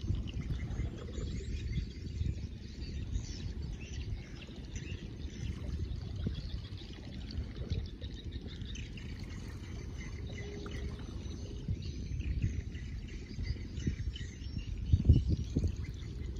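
Wind rumbling and buffeting on the microphone, with faint birds and insects chirping. A stronger gust knocks on the microphone near the end.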